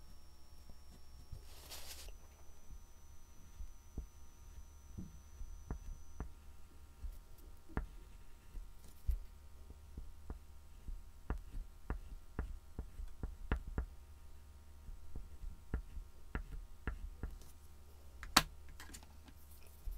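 Soft scattered taps and scrapes of an oil pastel stick and fingertips working on a painted MDF board, over a low steady hum, with one sharper click near the end.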